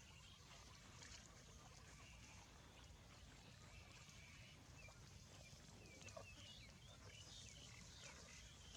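Faint outdoor field ambience: a low steady rumble with faint, short high chirping calls, most of them in the second half.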